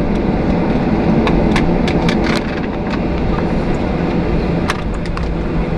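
Jet airliner cabin noise while taxiing after landing: a steady rumble from the engines and airframe, with scattered light clicks and rattles.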